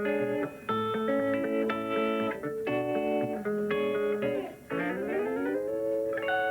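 Guitar played thumbpicking style, a bass line under plucked melody notes. About three-quarters of the way through, the notes glide steeply upward into a chord that is held and left ringing.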